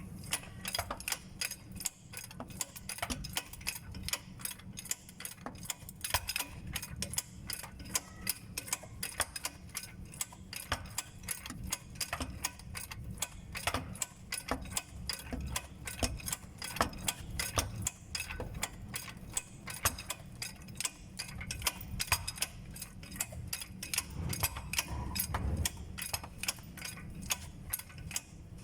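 A long, steady run of sharp metallic clicks, several a second, from hand work on a Toyota Hilux's gearbox mounting, like a ratchet or jack mechanism being worked.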